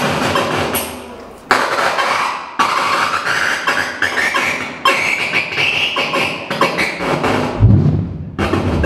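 Hand-built electronic noise instruments played live: dense crackling electronic noise full of clicks, cutting out and restarting abruptly several times. Partway through a wavering high tone comes in, and near the end a loud low droning tone.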